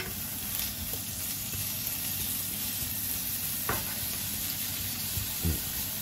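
Frozen sliced pork sizzling steadily in sesame oil in a nonstick frying pan while a wooden spatula stirs and scrapes it, knocking against the pan a few times.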